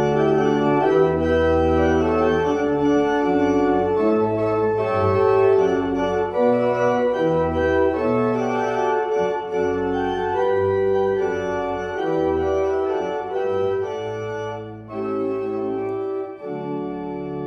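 Organ music: held chords that change every second or so over a moving bass line, with a brief dip in loudness near the end.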